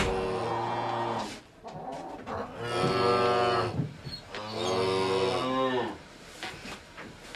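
Cattle mooing: three long, low calls, one after another, each lasting about a second and a quarter.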